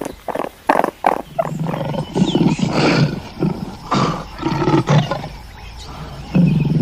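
Deep, rough calls of a large animal, one after another, with a loud new call starting near the end.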